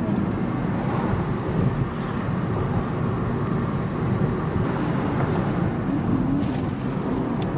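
Steady road and engine noise inside a moving Honda car's cabin.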